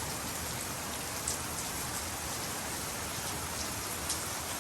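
Steady rain falling on outdoor surfaces, with a few louder individual drips.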